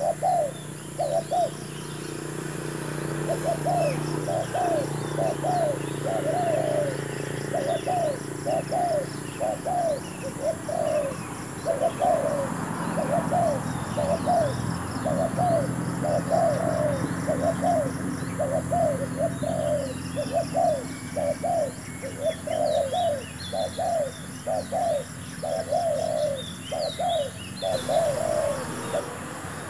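Spotted dove cooing over and over in quick repeated phrases, with faint chirps of small birds above it.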